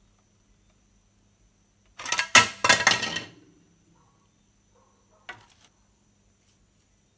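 Hard ABS plastic parts of an RC truck cab clattering as the bonnet comes off by accident: a quick run of sharp knocks lasting about a second, then one light click a couple of seconds later.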